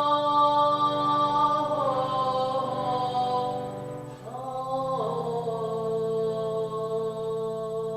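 A voice chanting long sustained mantra tones over a steady low drone. About four seconds in, the first held note breaks off briefly and the voice slides up into a second held note.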